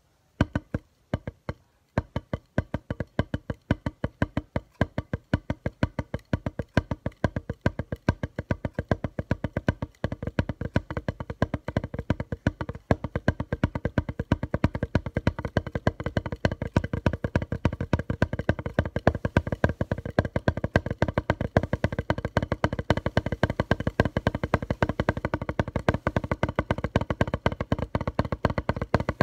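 A single drumstick striking a padded surface in rapid, evenly spaced strokes, played one-handed with the push-pull technique in triplets. After a few strokes and a short pause it settles into a steady stream, growing faster and louder about ten seconds in.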